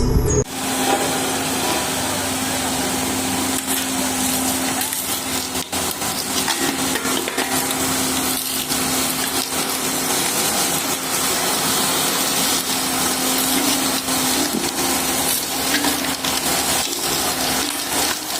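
Road roller's engine running steadily under a dense crackling, crunching noise, as the roller rolls over motorcycle silencers.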